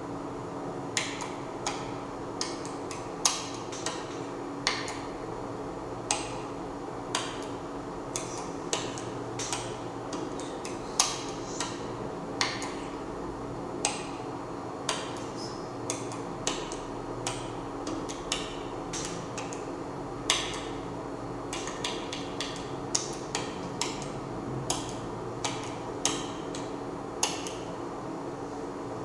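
Irregular sharp taps and knocks, roughly one or two a second, over a steady low hum.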